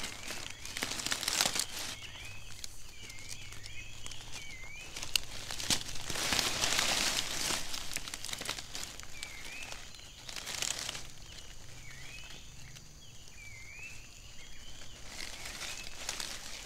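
Dry leaves and undergrowth rustling and crackling in several bursts, the longest about six to eight seconds in. Short wavering high-pitched calls repeat between the bursts over a steady high-pitched drone.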